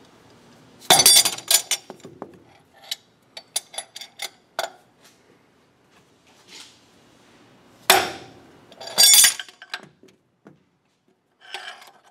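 A hammer striking the handle of a hook spanner fitted to the lathe spindle's slotted nut, to break the nut loose. Sharp metallic clanks come in a quick run about a second in and again in two bursts about two-thirds of the way through, with lighter clinks of metal between.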